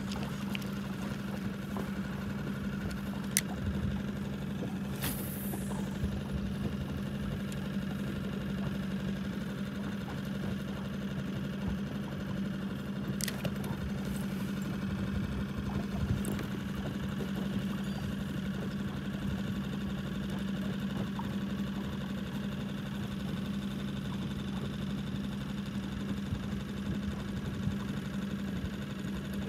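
Boat outboard motor running steadily at low trolling speed, a constant even hum, with a few faint clicks over it.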